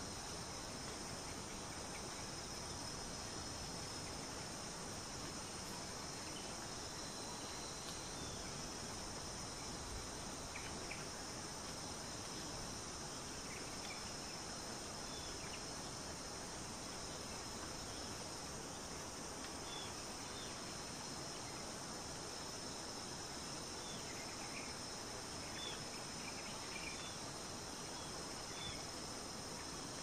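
Steady high-pitched insect chorus, cricket-like. A few faint, short bird chirps are scattered through the second half.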